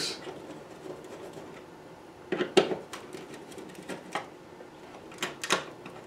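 A few short clicks and scrapes of a screwdriver and wires being worked at a smoke detector base as the wires are separated at the terminals, in small clusters about two and a half seconds in, about four seconds in and near the end.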